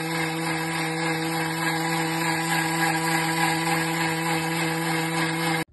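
Thermomix motor running its blade at full speed 10, a steady high motor hum over a churning rush of blending. It stops abruptly near the end.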